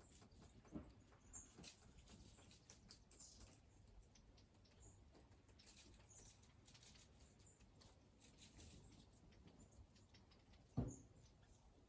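Small wild birds bathing in a garden bird bath: faint, scattered pattering splashes, with a few tiny high chirps and one short thump near the end.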